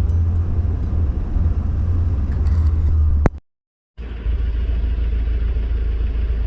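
Steady low rumble of a vehicle's engine and tyres while driving. A little over three seconds in there is a sharp click, then about half a second of dead silence before the rumble resumes.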